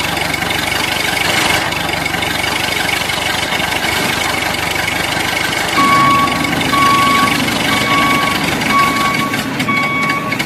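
A steady engine-like running noise, with an electronic beep repeating about once a second through the second half, like a vehicle's reversing alarm.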